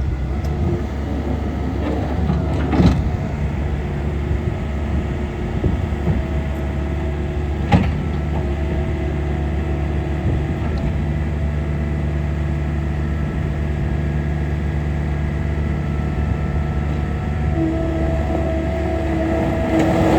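John Deere 318G skid steer loader's diesel engine running steadily, with two sharp clunks, about three and eight seconds in. A steady whine joins near the end.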